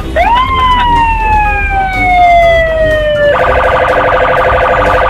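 Police car siren: a long wail that rises quickly and then slowly falls, switching abruptly about three seconds in to a rapid pulsing warble, over a low rumble of traffic.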